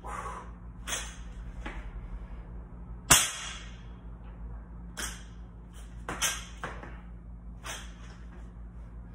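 Loaded barbell set down on a rubber gym floor with one sharp thud about three seconds in, with several softer short knocks before and after as the bar is lifted and lowered.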